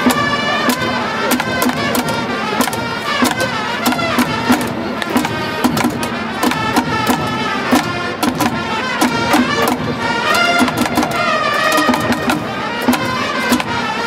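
Baseball cheering-section band playing a trumpet fight song over a steady rapid beat of drums and clappers, the organised cheering that accompanies a Japanese pro baseball at-bat.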